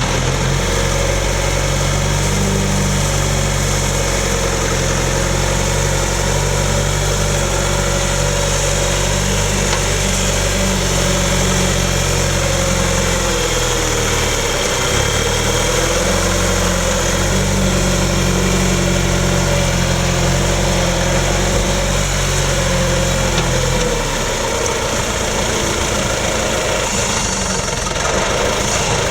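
John Deere 310B backhoe's diesel engine running steadily while the hoe is worked. Its note wavers and dips in the middle, and about 24 seconds in the deep low rumble drops away while the engine keeps running.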